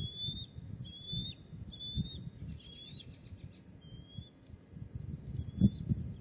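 A series of short, high, thin bird chirps, about one a second, with low rustling and thumps from bald eagles tearing at fish in the stick nest. One sharp knock comes a little after five and a half seconds.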